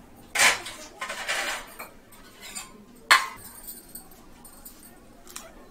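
Dishes and a glass clinking and clattering: a loud clatter about half a second in, a scraping stretch just after, and one sharp clink about three seconds in.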